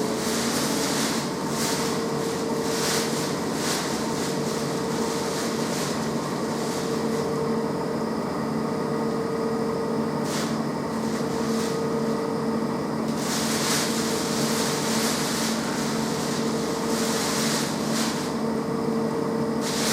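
Electrolux washing machine running, its motor giving a steady hum with a constant whine, with irregular surges of swishing noise from the turning drum.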